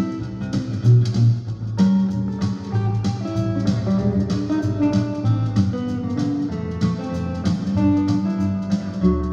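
Fender Stratocaster electric guitar played fingerstyle: a melody picked over plucked bass notes.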